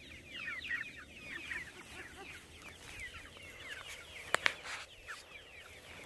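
A flock of chickens foraging in grass, peeping and chirping steadily in many short overlapping falling calls. A single sharp click comes just after four seconds in.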